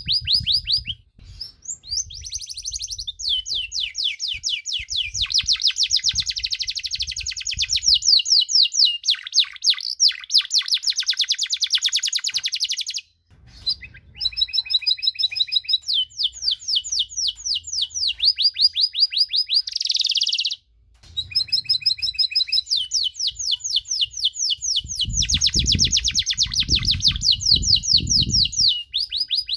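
Domestic canary singing a long song of fast trills, rapid repeated high notes rolling on phrase after phrase with only brief breaks about a second in, near the middle, and about two-thirds through.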